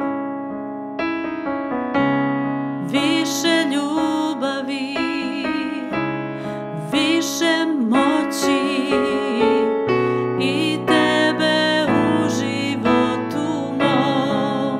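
Electric keyboard playing piano chords, joined about three seconds in by a woman singing with vibrato.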